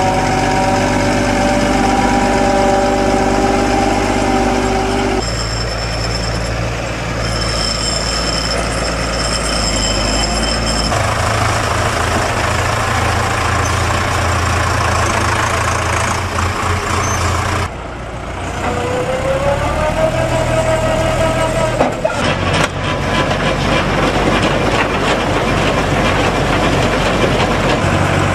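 Diesel engines of farm tractors, among them a New Holland T6030 and a Deutz-Fahr 6507C, running steadily in a string of shots that cut suddenly about 5, 11 and 18 seconds in. Soon after the last cut an engine note rises and then holds steady.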